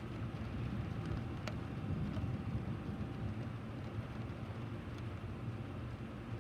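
Steady rain, a continuous low-pitched wash, with a few single drops striking close by as sharp ticks, one clearer than the rest about a second and a half in.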